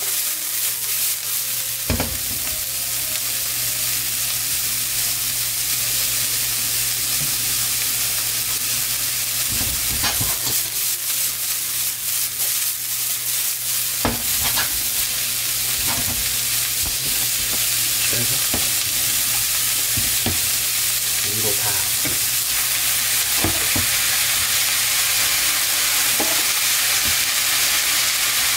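Bean sprouts sizzling steadily in a hot wok as they are stir-fried, with tongs knocking and clicking against the pan every second or so.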